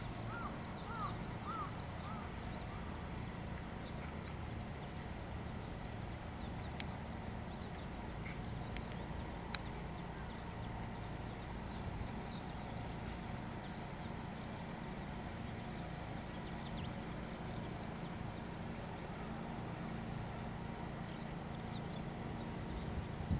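Open-air countryside ambience: a steady low rumble with birds chirping here and there, and a quick run of four calls at the very start.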